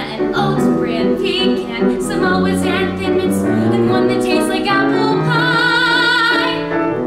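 A woman's solo voice singing a musical-theatre song with grand piano accompaniment, ending on a long held note with vibrato about five seconds in.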